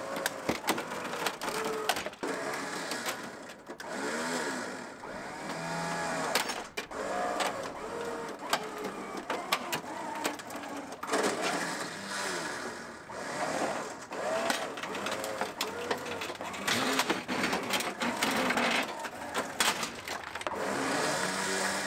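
Winch motor running in repeated pulls, its pitch rising and falling as it strains, with sharp clicks and cracks throughout. It is pulling the crash-pushed radiator support of a 2019 GMC Yukon Denali back out.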